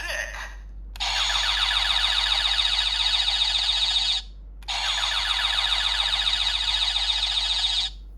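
Electronic sound effect from a transformation-toy speaker: a rapid, warbling alarm-like tone plays twice, each run about three seconds long, with a half-second break between them.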